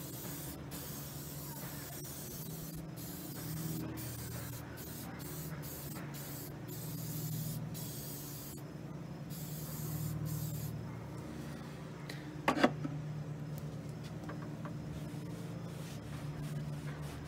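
Aerosol can of Mother's Back to Black cleaner/restorer spraying in a run of short bursts onto the hood's underside, stopping after about ten seconds. A sharp knock about twelve and a half seconds in.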